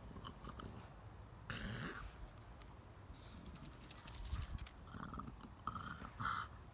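A French bulldog snuffling in several short noisy bursts, with a quick run of clicks about four seconds in.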